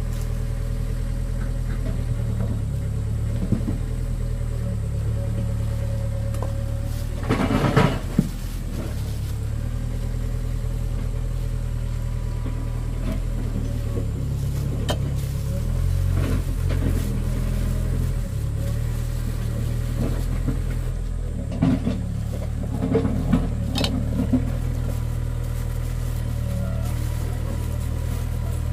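A steady, low engine drone, with a short clatter about seven seconds in and a few lighter knocks later on.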